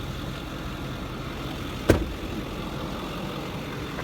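Ford 6.4 Power Stroke V8 turbodiesel idling steadily, with one sharp knock about two seconds in.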